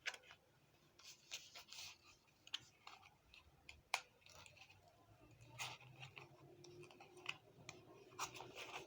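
Faint handling noise of an item being taken out of its packaging: scattered light clicks, taps and scratchy rustles, a few sharper clicks standing out.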